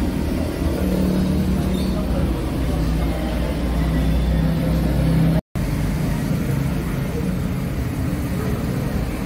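Street traffic: a steady rumble of road vehicles with a nearby engine humming steadily. The sound cuts out for an instant about halfway through, then the traffic noise carries on.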